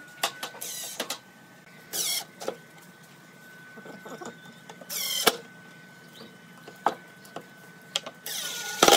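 Cordless impact driver running in about four short bursts, each a fraction of a second long, driving screws through steel mending plates into a pine board, with a few sharp clicks between the bursts.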